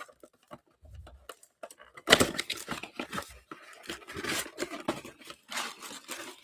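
A sealed trading-card box being torn open: wrapper and cardboard tearing and crinkling in uneven bursts, starting about two seconds in, as the packs are pulled out.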